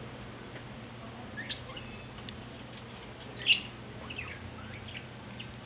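Small cage birds giving short, scattered chirps, the loudest about three and a half seconds in, with light ticks in between.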